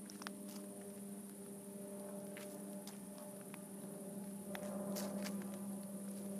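A steady low hum with faint, scattered clicks, growing slightly louder about two-thirds of the way through.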